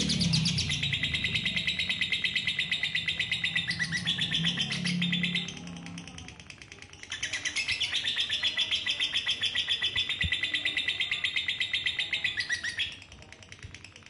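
Female lovebird giving its long 'ngekek', a very rapid, continuous chattering trill. It comes in two long bouts of about five seconds each, with a brief weaker stretch around six seconds in, and the trill drops away about a second before the end.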